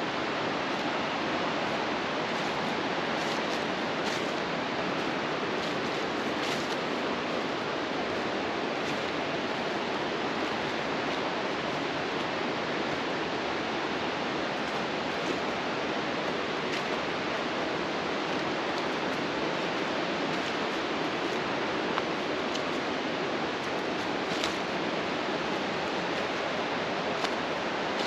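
Steady rushing of a stream: an even, unbroken hiss of running water.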